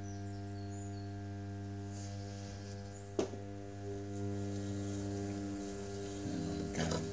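Electric potter's wheel motor humming steadily as the wheel turns slowly. One sharp click comes about three seconds in, and a few brief handling sounds come near the end.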